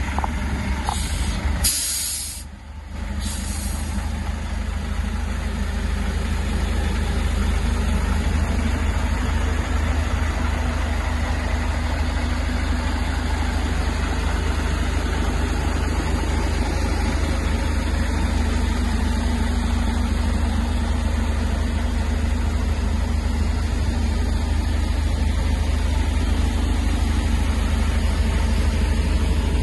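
Large diesel engine of an SMV heavy-duty forklift idling steadily, a deep even hum. Short bursts of hissing about one to four seconds in.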